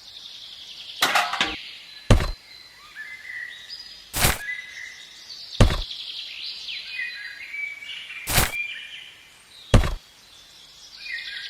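Six sharp knocks, spaced one to three seconds apart, while small birds chirp and twitter in the background.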